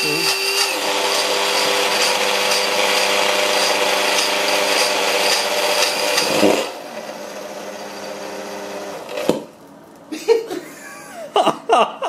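Appliance electric motor running loudly and steadily while overdriven on a variac at well above mains voltage. About six and a half seconds in its sound suddenly drops to a much quieter run, and a sharp click follows a little after nine seconds, as the overvolted motor fails and begins to smoke.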